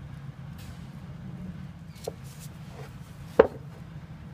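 Cast iron weights being handled on a windowsill: a light knock about two seconds in and one sharp knock near the end as a weight is set down, with handling rustle in between, over a faint steady low hum.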